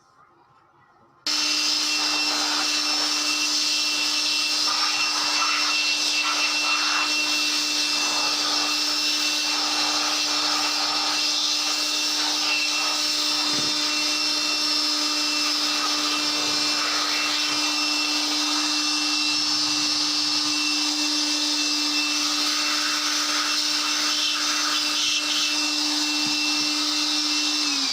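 Washing machine electric motor running at steady speed, with a steady hum and a hiss. It is switched on abruptly about a second in, and near the end its pitch starts to fall as it is switched off and slows down.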